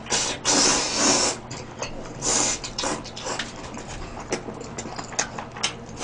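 A person slurping up a mouthful of noodles, with a long slurp in the first second and a shorter one about two seconds in, then wet chewing with many quick lip smacks.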